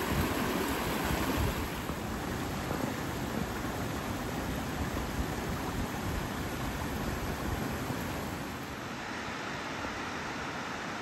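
A small rocky stream rushing over stones: a steady wash of running water. A deeper rumble in the first couple of seconds eases off after that.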